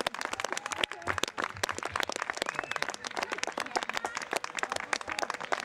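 A small group of people clapping hands, fast and uneven, with shouting and cheering voices mixed in.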